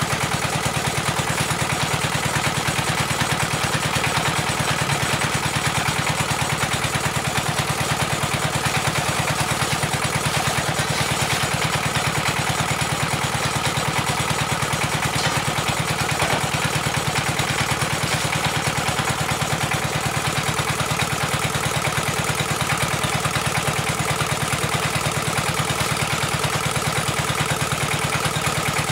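An engine driving the water-well drilling rig, running steadily with a fast, even chug and no change in speed.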